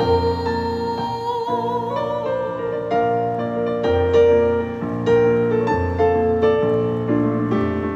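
A woman's singing voice holds a note with vibrato that ends about two seconds in, over a Yamaha CP40 Stage digital piano, which then plays on alone in a run of notes and chords.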